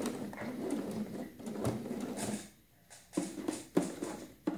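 Shirt fabric rustling as it is handled and smoothed at a sewing machine, followed by a few light clicks and knocks near the end.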